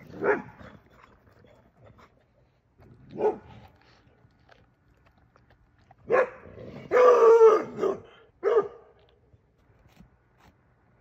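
Dogs barking as they play: several separate barks, the loudest and longest about seven seconds in.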